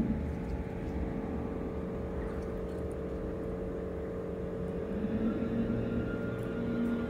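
Steady low rumble of distant road traffic heard through an open window, with a faint steady hum underneath.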